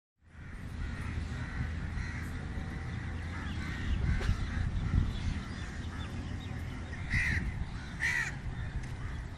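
Crows cawing among other birds calling, with two louder calls a little after seven and eight seconds in, over a steady low rumble.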